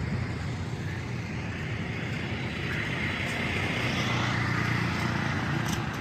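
Motor vehicle running along a road: steady engine and road noise, getting a little louder about halfway through.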